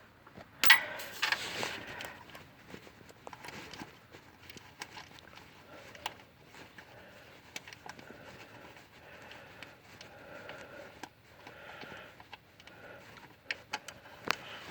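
Ratchet and 15 mm socket working the starter bolts loose: irregular clicks and small metal taps, with a louder clatter about a second in.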